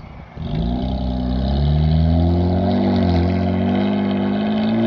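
Dodge Charger's 3.6 L Pentastar V6 through a Solo Performance Cyclone exhaust, accelerating away from a stop. The exhaust note starts about half a second in and rises in pitch, dips briefly about three seconds in, then holds fairly steady.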